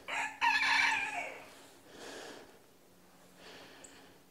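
A rooster crowing once, about a second long starting just after the opening, its call falling away at the end.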